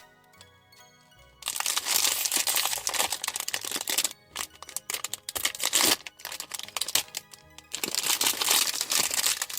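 Packaging being handled and crinkled loudly with many sharp crackles, starting about a second and a half in and pausing briefly twice, as a blind box is opened. Soft background music underneath.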